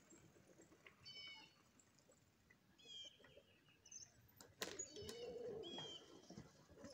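Faint bird chirps: short, high, pitched calls about one second in, around three seconds and again near five seconds, with a lower, drawn-out sound from about five to six seconds in.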